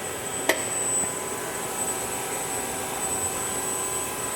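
Steady hum of a CNC Swiss-type lathe standing powered up with its spindles stopped, with a thin high whine over it and one sharp click about half a second in.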